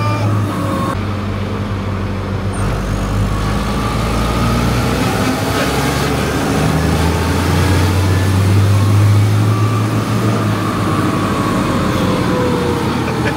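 Tractor engine running steadily on the road, heard from inside the cab as a low drone whose note swells a little past the middle and eases off near the end.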